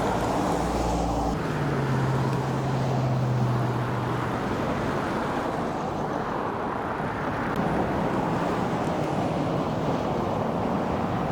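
Road traffic noise: a steady rush of vehicles, with a low engine hum from a passing vehicle between about one and a half and four and a half seconds in.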